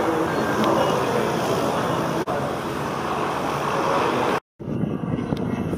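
Small single-engine biplane's piston engine and propeller running steadily at low power while taxiing. About four seconds in the sound drops out briefly, then engine noise resumes.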